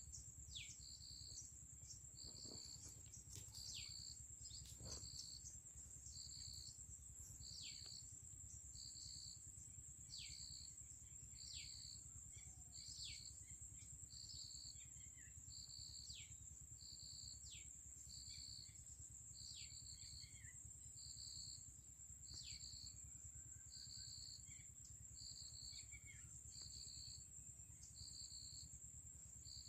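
Faint outdoor insect chorus: a continuous high-pitched trill with a regular chirp about once a second, and short falling bird whistles now and then.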